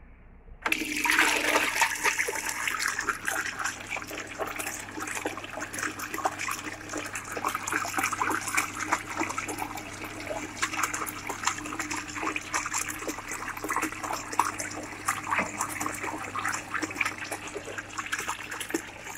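A small submersible electric water pump switches on about a second in, and its jet of water splashes and gushes steadily back into a plastic bucket, with a low steady motor hum underneath.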